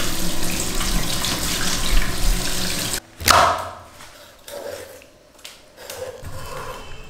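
Tap water running hard onto a split fish held in a stainless-steel sink, cutting off abruptly about three seconds in. A loud thump follows, then quieter scrapes and knife cuts on a wooden board.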